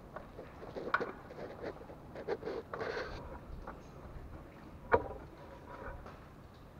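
Hand-work noises as a new spin-on oil filter is screwed onto the engine by hand: rustling and light scraping, with a sharp click about a second in and a louder knock near five seconds in.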